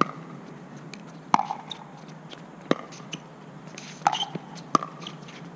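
Pickleball rally: paddles striking the hollow plastic ball in a series of sharp pocks, about five in all, coming a little faster near the end, with fainter taps between.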